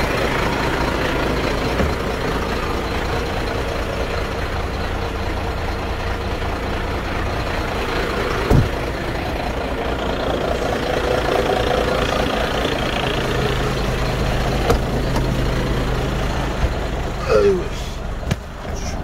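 Iveco 430 PS tractor unit's diesel engine idling steadily, with a sharp knock about eight and a half seconds in and a short squeak near the end.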